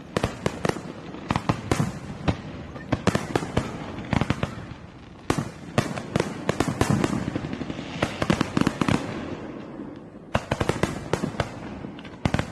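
Fireworks going off in rapid succession: a dense run of sharp bangs and crackling pops, thickest about two thirds of the way in, with a short lull near the end.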